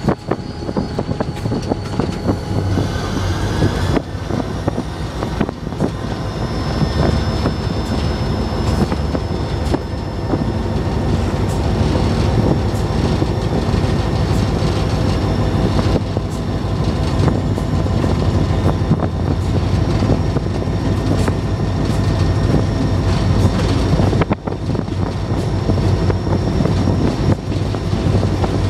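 Diesel locomotive under way, heard from its cab: a steady low engine rumble with the wheels clicking over the rails and a thin high whine at times.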